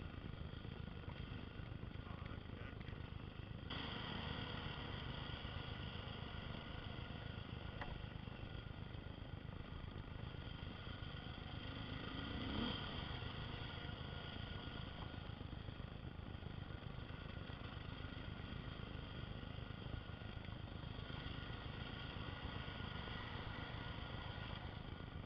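Single-cylinder four-stroke dual-sport motorcycle engine running steadily while riding a dirt trail. It gets louder about four seconds in and revs up briefly near the middle.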